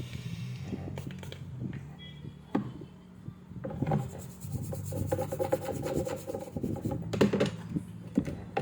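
Rubbing and scraping on a circuit board, with scattered small clicks and knocks over a steady low hum; a steadier tone with fast ticking joins in from about halfway to near the end.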